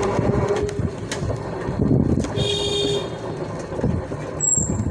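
A vehicle rumbling as it travels along a road, with a short high tone about halfway through.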